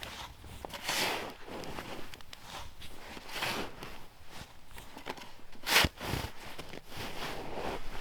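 Slow footsteps crunching through deep snow, a few irregular steps about one to two seconds apart, one sharper and louder a little past halfway.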